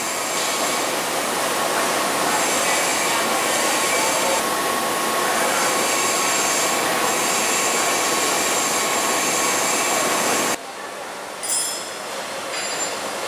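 Loud steady machinery noise with a few high whining tones running through it. It cuts off abruptly about ten and a half seconds in, leaving quieter workshop noise with a few brief sharper sounds.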